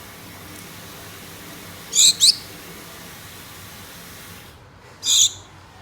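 Gouldian finches calling: a quick pair of short, high calls about two seconds in, then a single call about five seconds in, over a faint steady hiss.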